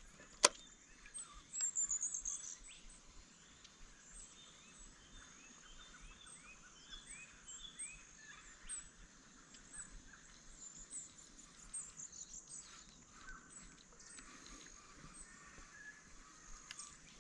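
Birds calling in bushland by the water: short high chirps repeating about once a second, with a run of lower curved calls in the first few seconds. A single sharp click sounds just after the start.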